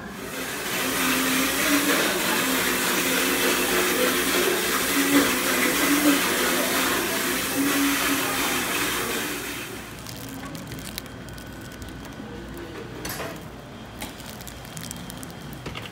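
Loud steady rushing noise, like moving air or a running machine, that fades out about ten seconds in, leaving quieter shop ambience with a few soft clicks and rustles.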